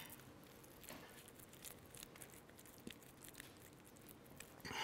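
Near silence with faint, scattered small clicks and soft squishing: hands working a soft, sticky coconut-and-biscuit mixture into a ball.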